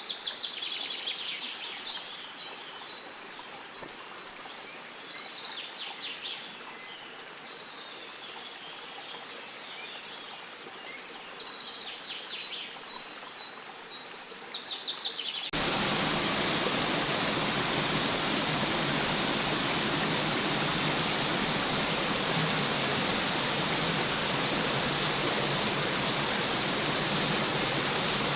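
Insects shrilling in one steady high tone, with occasional bird calls. About halfway, this cuts suddenly to the steady rush of a waterfall.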